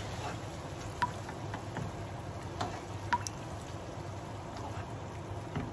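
Chicken stir-fry sizzling in a frying pan on a gas hob while it is turned with a wooden spatula and a metal spoon. There are three sharp clinks of the spoon against the pan: about a second in, and twice more around two and a half to three seconds in.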